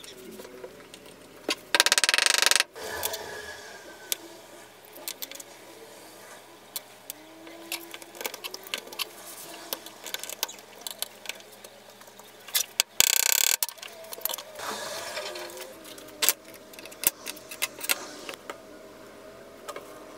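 Handling sounds on a workbench: scattered clicks and taps as handle scales and clamps are set down and moved, with two loud, short rushes of noise about two seconds in and again about thirteen seconds in.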